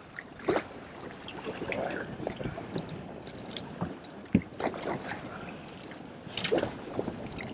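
Water lapping and splashing against a small fishing boat's hull, with irregular small knocks and clicks.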